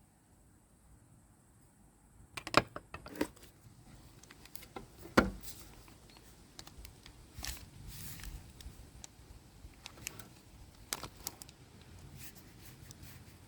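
Unboxing handling noises: irregular clicks, knocks and rustles as the angle grinder and its packaging are handled, with two louder knocks about two and a half and five seconds in. The grinder's motor is not running.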